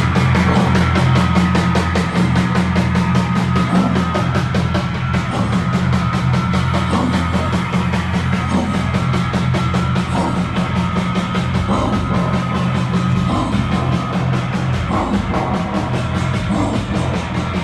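Loud live concert music through a PA, with heavy bass and a fast, driving drum beat.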